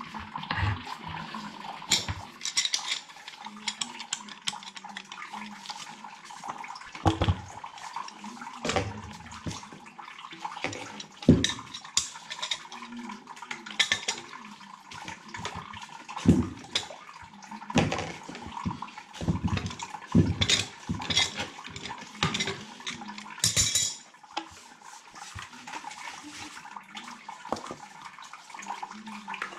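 Irregular clanks, knocks and rattles of pipe fittings and a sump pump being handled and swapped in a water-filled sump pit, with water splashing and sloshing between the knocks.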